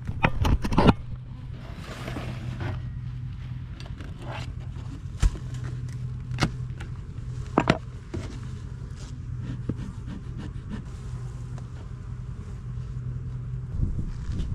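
Knocks, clicks and scrapes of wooden hive parts being handled as a beehive is opened, over a steady low hum.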